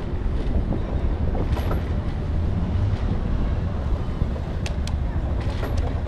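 Wind rushing over a bicycle-mounted camera's microphone, with the low rumble of the bike rolling along the paved lane, during a ride. Two brief light ticks come about three-quarters of the way through.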